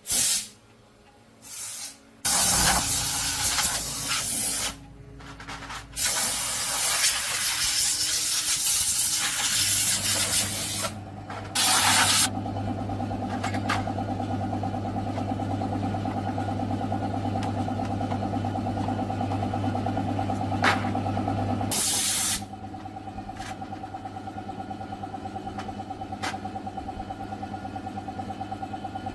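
Several bursts of hissing spray, then a steady machine hum with a fast pulse starting about ten seconds in. The hum drops to a lower level a little after twenty seconds.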